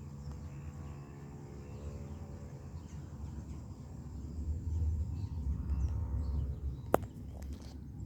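Boeing 777-200LR's twin GE90 turbofans roaring at a distance, a low rumble that swells between about four and six and a half seconds in. A single sharp click near the end is the loudest moment.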